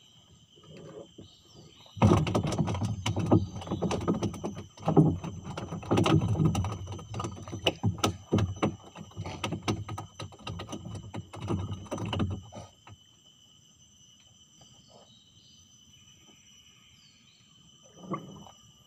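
A freshly caught fish thrashing on the wooden floor of a small boat: rapid, irregular thumps and knocks for about ten seconds that then stop, over a steady high drone of insects.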